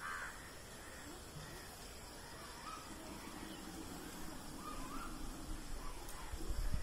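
Crows cawing several times, with a short call every second or two, over a faint outdoor background; a low rumble builds near the end.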